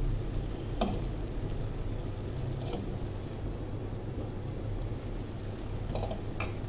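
Food frying in oil in a pan, a steady sizzling hiss, with a few light metal clicks of a spatula.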